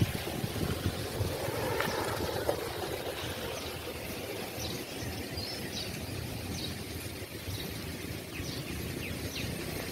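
Outdoor rural ambience: a steady low rumbling noise with scattered short, high bird chirps, more of them in the second half.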